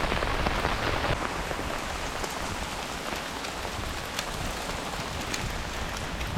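Steady rain falling, a dense hiss with scattered sharper drop ticks; the heavier, brighter hiss eases abruptly about a second in.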